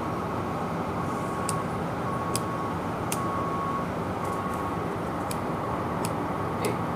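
Steady, even rumble of a ship's machinery while under way during trials, with a faint high beep that sounds on and off about once a second.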